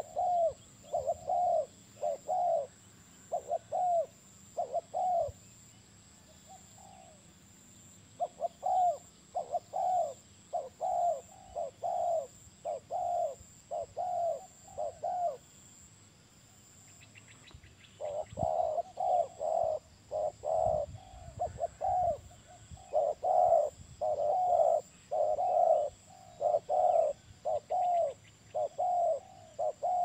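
Spotted dove cooing: a long series of short, arched coos at about one and a half a second, in three runs with a pause of two to three seconds between them.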